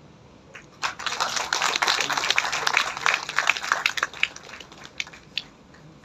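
Applause from a crowd of people: dense clapping starts about a second in, runs for about three seconds, then thins to a few last scattered claps.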